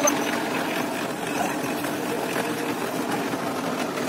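Engine idling steadily with an even hum.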